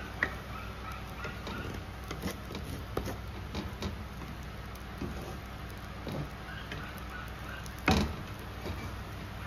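Wooden spatula stirring a thick simmering sauce in a skillet, with scattered light knocks and scrapes against the pan and one louder knock about eight seconds in, over a steady low hum.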